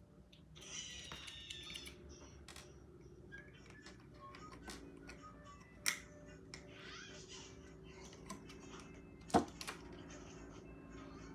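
Quiet handling sounds of clay beads and elastic cord being worked by hand: soft rustles and scattered small clicks, with a sharper click about six seconds in and another about nine seconds in.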